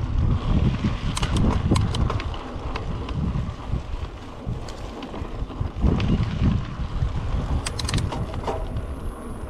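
Wind rumbling and buffeting on the camera microphone of a moving mountain bike. Clusters of sharp clicks and rattles from the bike come about a second in and again near eight seconds.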